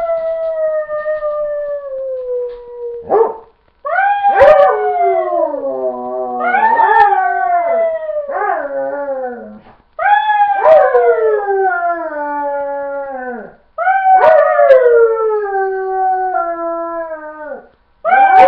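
Dog howling: about five long howls in a row, each starting high and sliding down in pitch, with short breaks between them.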